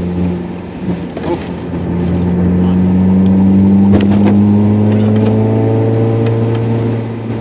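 Car engine and road noise heard from inside the cabin while driving. The revs climb from about two seconds in and then hold steady as the car pulls along. A few short knocks come through, about one and a half and four seconds in.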